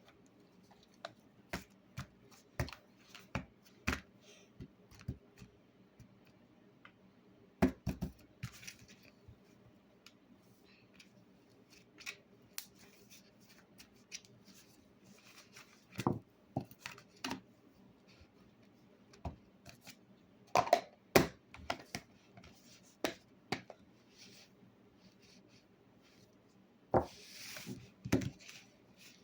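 Slime being squeezed and worked by hand, giving sharp clicks and pops at irregular intervals, with a few brief squelchy hisses.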